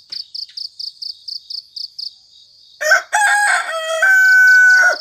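Crickets chirping in an even pulse of about four chirps a second. About three seconds in, a rooster crows once, a loud call of about two seconds.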